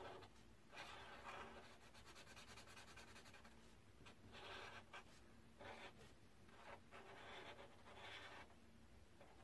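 Felt-tip marker drawing on paper: faint scratchy strokes in short spells of up to about a second, with brief pauses between them.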